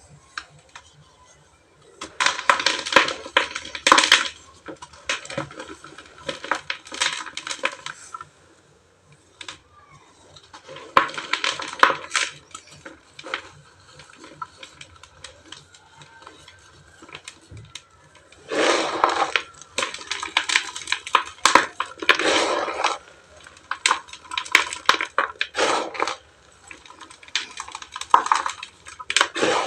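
Dry cement and ash chunks crunching and crumbling, a dense crackle of brittle snaps that comes in bursts of a few seconds with short pauses between.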